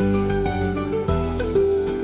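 Instrumental background music, with sustained notes changing every half second or so.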